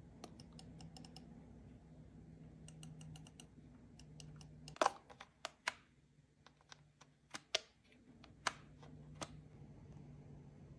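Keys of an ROG mechanical keyboard being typed on: two quick runs of light clicks, then a series of louder, separate key strikes in the second half.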